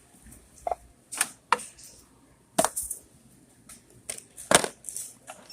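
A handful of sharp clicks and knocks of small hard objects being handled, about five of them, the loudest about four and a half seconds in.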